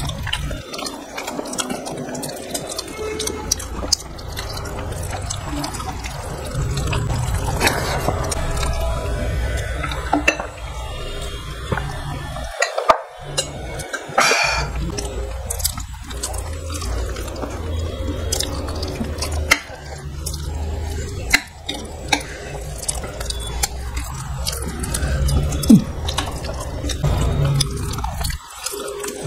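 Close-miked eating with the hands: fingers mixing and squishing rice with vegetable curry on plates, with chewing and wet mouth clicks. About halfway through, someone drinks from a glass.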